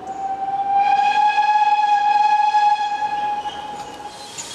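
A train's whistle: one long single-note blast of about four seconds, steady in pitch, fading away near the end.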